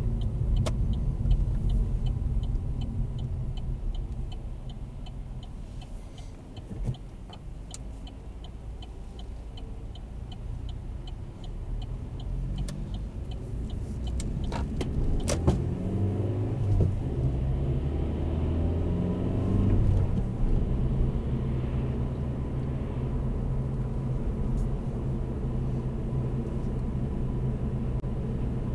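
Inside a 2016 Vauxhall Corsa 1.4-litre manual: the turn indicator ticks steadily over low road and engine rumble as the car slows for a left turn. The ticking stops about fourteen seconds in, and the engine then pulls away and accelerates, rising in pitch and getting louder.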